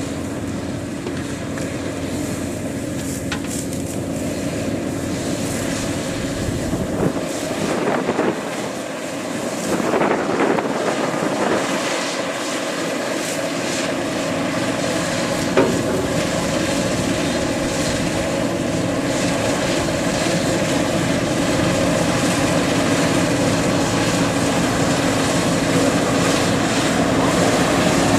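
Kubota DC-93 combine harvester's engine running steadily under load while it cuts rice, a continuous drone with a brief rush of noise about seven to eleven seconds in.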